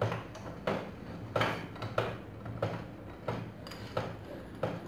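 Sharp clicks or light knocks repeating at a fairly even pace, about every two-thirds of a second, over a low steady hum.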